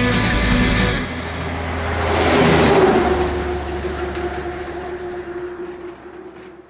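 Background music cuts off about a second in. A passing motor vehicle's engine and road noise then swells to a peak about three seconds in and fades away, over a low steady hum.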